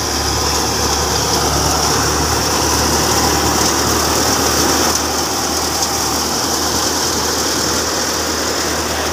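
Tractor-driven grain thresher running steadily while threshing: an Al-Ghazi tractor engine under load turns the thresher drum and fan. A constant low engine hum lies under a steady hiss of chaff and grain blowing through the machine.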